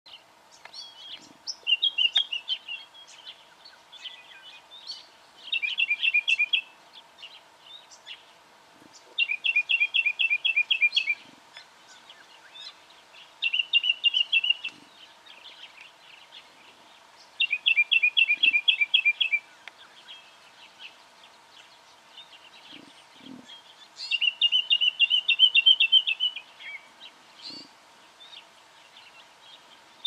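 Black honeyeater singing: six bursts of rapid, high chirping notes, each lasting one to two seconds and coming every few seconds, with softer single chirps in between.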